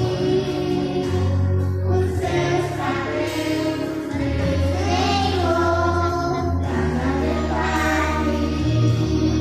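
Two young girls singing a Christian song into microphones over an instrumental accompaniment with held bass notes.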